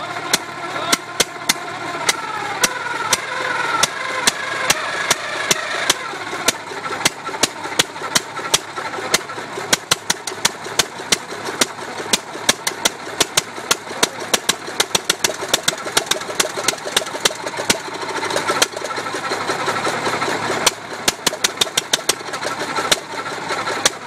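1.5 hp Sattley hit-and-miss engine firing under its own power: sharp, loud exhaust pops coming irregularly, sometimes spaced out and sometimes in quick bunches. The engine only runs in short bursts and won't stay running, a fault the owner means to cure by replacing the ignition condenser.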